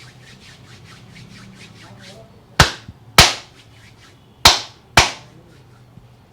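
Hands rubbing briskly over hair and scalp in quick strokes, then four loud, sharp hand slaps in two pairs, each pair about half a second apart.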